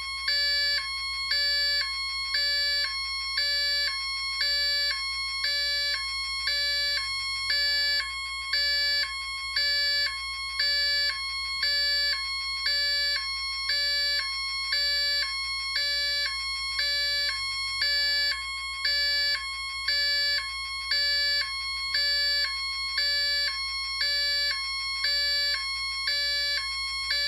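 Electronic siren of a flashing warning-light unit on its ambulance Hi-Lo setting: two tones alternating steadily, about one high-low cycle a second.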